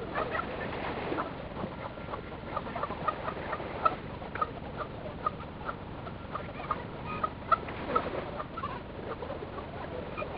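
Outdoor sound from a model boat on the water, played back at four times speed: a steady hiss with many short, high-pitched chirps scattered irregularly throughout.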